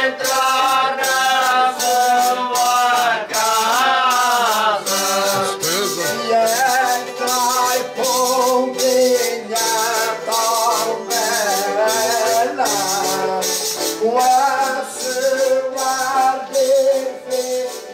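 Azorean Holy Spirit foliões singing a slow chant in drawn-out, gliding notes over a steady beat of shaken, jingling hand percussion.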